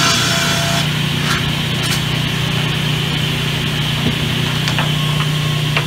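Sawmill saw running steadily with a low hum, the high sawing noise of a cut through the timber dying away about a second in. A few light knocks as boards are handled.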